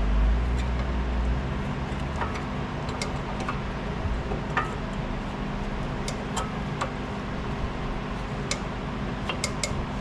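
Light, scattered metallic clicks and taps from brake pads, clips and hardware being handled during a front brake pad change, over a steady low hum that is strongest in the first second or so.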